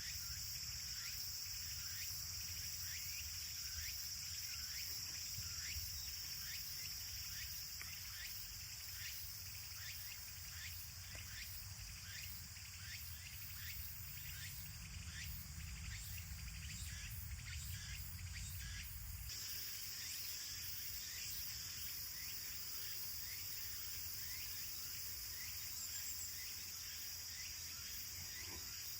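Outdoor insect chorus: a steady high drone with short chirps repeating a couple of times a second, typical of crickets. A low rumble underneath stops abruptly about two-thirds of the way in.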